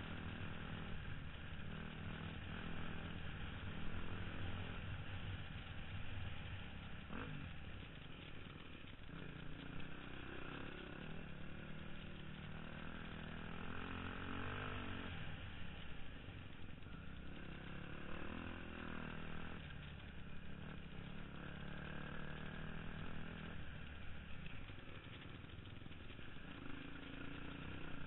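Dirt bike engine heard from the rider's own bike while riding a trail, its pitch climbing and dropping several times with the throttle.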